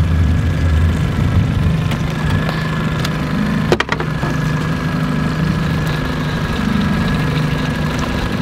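Outboard motor running steadily at trolling speed, a low even hum, with one brief sharp clack a little under four seconds in.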